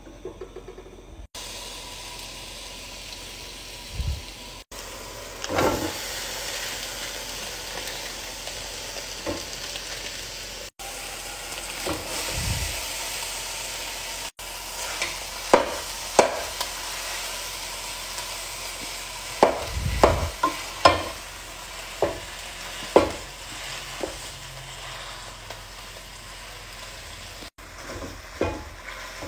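Ground beef sizzling in a hot pot, with a wooden spatula knocking and scraping against the pot as the meat is broken up; the sharp knocks come mostly in the second half.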